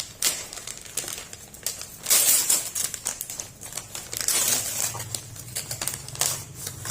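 Gift wrapping crinkling and rustling as a birthday present is pulled open by hand, in uneven bursts, loudest about two seconds in.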